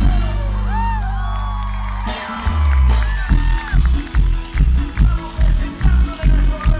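Live cuarteto band playing through a stage PA. A held bass-and-keyboard chord carries voices gliding over it, then about two seconds in the band drops into a steady dance beat of bass and drums. The crowd whoops and cheers.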